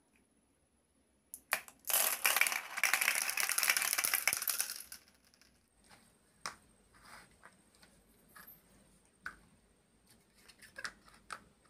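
Glass marbles clattering on plastic in a dense rattle for about three seconds, then a scatter of light clicks and taps as plastic building blocks are set down on a table.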